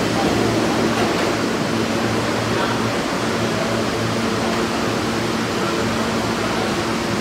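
New York City subway train running away down the tunnel after leaving the platform: a steady rumble and hiss with a low hum, easing slightly as it goes.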